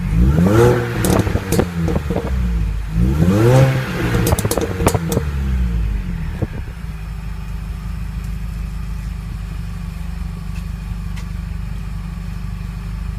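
Mini Cooper S R53's supercharged four-cylinder engine, on stock exhaust, blipped twice in the first five seconds, the revs rising and falling with sharp pops and crackles from the exhaust as they drop. From about six seconds in it settles to a steady idle.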